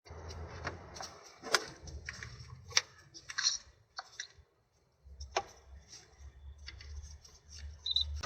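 Scattered sharp clicks and light metallic taps of hand tools and parts being handled while working on the gearbox, with a faint low hum coming and going underneath.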